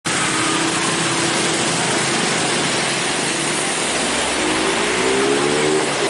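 Road traffic on a wet street: a steady hiss with passing car and motorcycle engines, one engine rising in pitch near the end as it speeds up.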